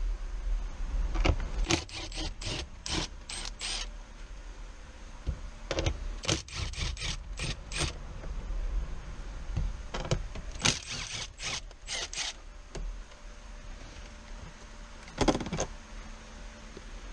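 Metal hand tools clinking and clattering in irregular clusters of sharp clicks, with one louder clatter near the end.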